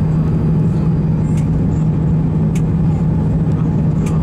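Airbus A310-300 cabin noise on final approach, heard from a window seat over the wing: a steady engine drone with a constant low hum over rushing air. Faint sharp ticks come about every second and a quarter.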